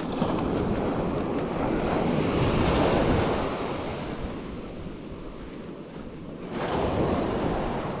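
Small ocean waves breaking and washing up the beach: one surge builds to a peak a few seconds in and fades, and another rises near the end. Some wind buffets the microphone.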